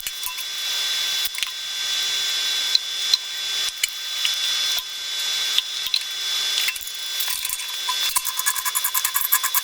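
Hand-tool work on metal burner parts: rasping, scraping strokes that swell and drop about once a second. About eight seconds in they become a fast, even run of strokes, roughly seven a second.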